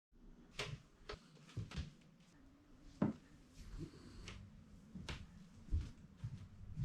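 A sleeping Shiba Inu snoring: short, sharp snorts at irregular intervals, the loudest about three seconds in.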